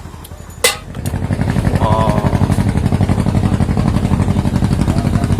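A small engine running close by with a fast, even pulse, growing loud about a second in just after a sharp click.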